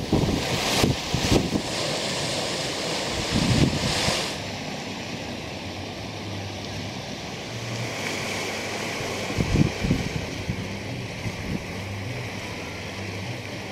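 Surf washing against a rocky shore, with wind gusting on the microphone, heaviest in the first four seconds and steadier after.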